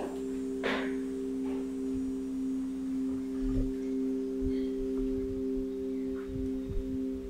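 A steady, sustained drone of a few held tones, like a singing bowl or synthesized score pad, with a short knock under a second in and a few faint low thuds later on.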